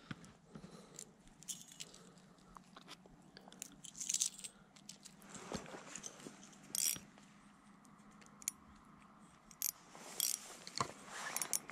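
Faint scattered clicks, crinkles and rustles of fishing tackle being handled: a lure being clipped onto the line, then a spinning reel being worked near the end.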